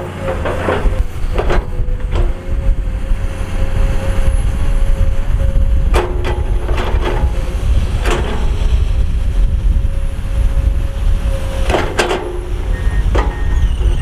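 Komatsu PC210 hydraulic excavator's diesel engine running under load with a deep rumble and a steady whine through the first half, punctuated every few seconds by sharp metallic clanks and knocks as the bucket works rock.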